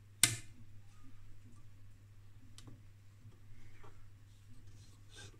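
Front-panel switch on a homebrew valve receiver snapping over: one sharp click about a quarter second in and a fainter click near the middle, over a steady low hum.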